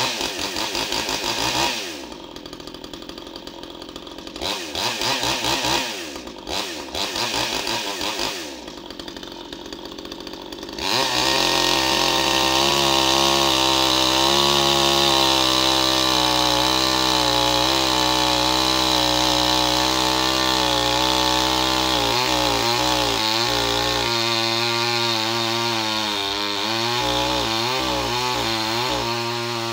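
Hyundai P1PE two-stroke petrol chainsaw idling and blipping its throttle several times. About eleven seconds in it goes to full throttle and holds it as the chain cuts into a log, its pitch wavering under the load later on.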